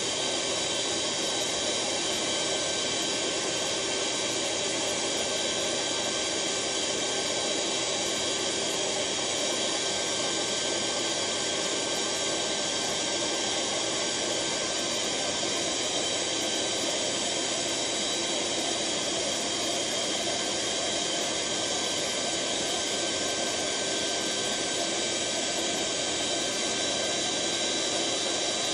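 An electric blower running steadily, pushing air through a hose into a large inflatable as it fills. It makes an even rushing whine with a few faint high tones held steady.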